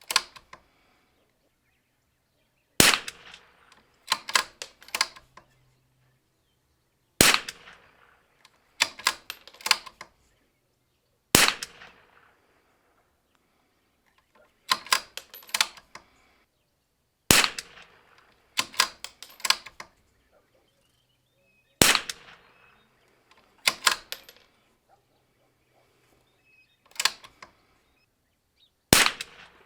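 About seven .22LR rifle shots from a Zermatt Rim-X bolt-action rifle, each a sharp crack a few seconds apart. After each shot comes a quick run of metallic clicks, the bolt being worked to chamber the next round.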